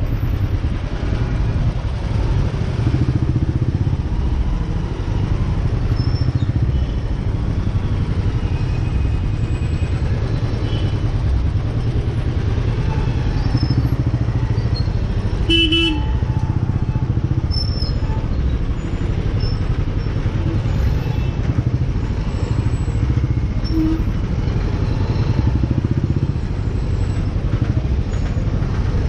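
Slow, dense city traffic of scooters, motorcycles and cars heard from a moving two-wheeler, with a steady low engine-and-road rumble. A vehicle horn gives a short beep about halfway through.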